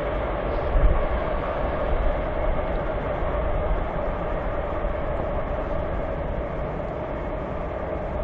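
Freight train of covered grain hoppers rolling by: a steady rumble of steel wheels on rail with a constant hum running through it.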